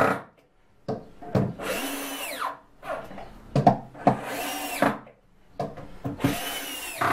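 Hand-held power drill driving screws into walnut, in three short runs of about a second each with pauses between them. The motor pitch falls off at the end of each run.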